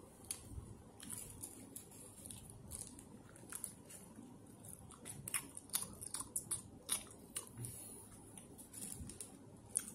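Eating a burger: a bite and chewing with mouth clicks, while the burger's paper wrapper crinkles in the hands. Heard as a string of short, sharp clicks and crackles, thickest in the second half.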